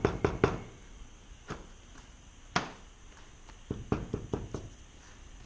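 Wooden stir stick tapping and scraping on a clipboard as fiberglass body filler is worked off it onto the paper. A quick run of sharp taps opens, then a few scattered clicks, the loudest near the middle, and a small cluster of taps near the end.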